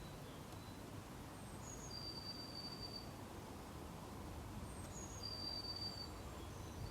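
A songbird repeating the same short phrase twice, about three seconds apart: two brief high notes followed by a long, steady high whistle, over a faint low outdoor rumble.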